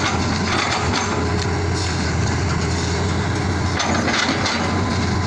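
Hitachi Zaxis 200 hydraulic excavator's diesel engine running steadily while its log grapple grabs rubberwood logs, with a few wooden knocks as the logs strike each other, most of them about four seconds in.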